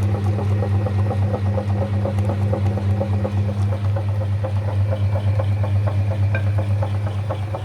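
Electric meat grinder running steadily, its motor giving a strong even hum under a fast, rattling churn.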